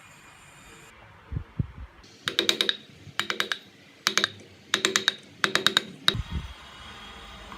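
Six short bursts of rapid, sharp clicking taps on a hard surface, with a few low thumps just before and after them.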